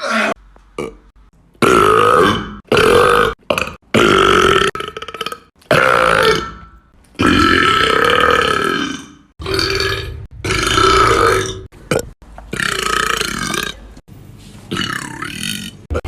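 A man burping loudly, a run of about eight long, drawn-out burps one after another, each lasting one to two seconds.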